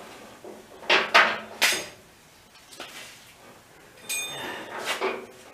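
Metal parts clanking and knocking as they are handled: three hard knocks about a second in, then a clank that rings on briefly near four seconds, and another knock near five seconds.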